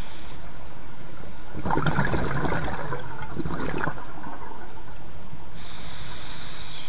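Scuba diver's regulator breathing underwater: a crackling burst of exhaled bubbles for about two seconds, then a hissing inhale through the regulator starting near the end.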